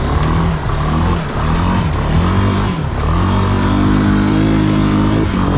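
Honda 300 ATV's single-cylinder four-stroke engine being ridden, revving up and down several times, then held steady at higher revs from about halfway and easing off near the end.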